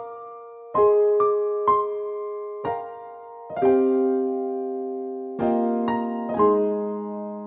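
Background music: slow piano chords and single notes, each struck and left to ring out, with a new strike every half second to two seconds.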